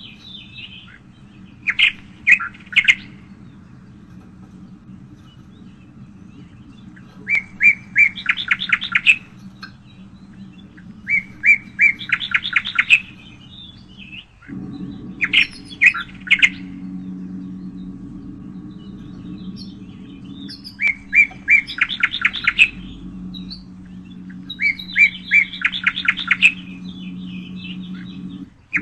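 A songbird singing the same short phrase over and over, about every three to four seconds: a few separate notes running into a quick trill. A steady low hum runs underneath; it cuts out for a moment about halfway through and comes back louder.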